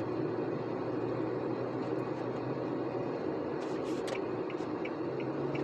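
Steady engine and road noise inside a moving vehicle's cab, with a low steady hum underneath. A few faint ticks come in over the last couple of seconds.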